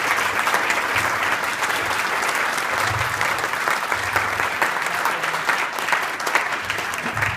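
A roomful of seated people applauding: dense, steady clapping that holds at an even level throughout.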